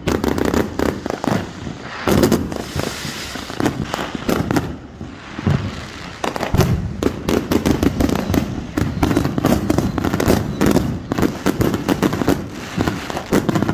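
Fireworks going off in rapid strings of sharp bangs and crackles, thinning out for a few seconds in the middle and then turning into a dense, continuous crackle.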